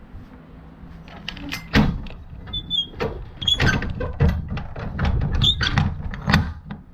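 Irregular knocks and clunks, with a couple of short squeaks, starting about a second in, like a vehicle's doors or panels being handled.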